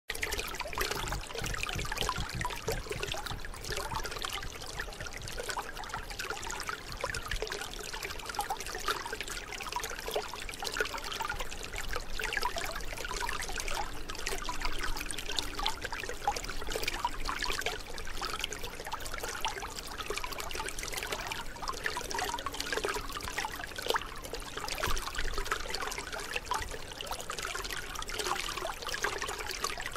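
Shallow canal water trickling steadily through a gap in a mud bank into a woven bamboo fish trap, with many small irregular splashes.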